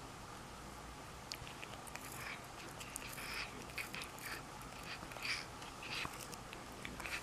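Kitten biting and gnawing on a wooden pencil: quiet, irregular clicks and scratches of teeth on wood.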